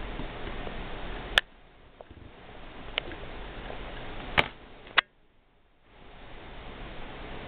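Four sharp, isolated clicks over a steady background hiss. The hiss drops after the first click and cuts out briefly after the last one.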